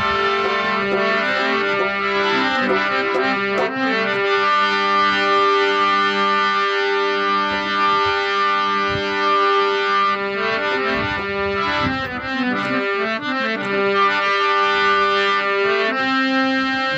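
Instrumental introduction of a devotional bhajan: a reed instrument such as a harmonium or accordion playing held chords and a melody, with notes changing every second or so.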